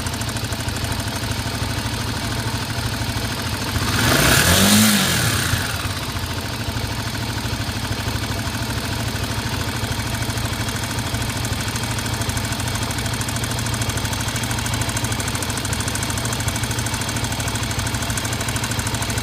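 Honda XR250's single-cylinder four-stroke engine idling, revved up and back down once about four seconds in, with a knock from the cylinder head that comes and goes; the owner gives valves out of adjustment as one possible cause.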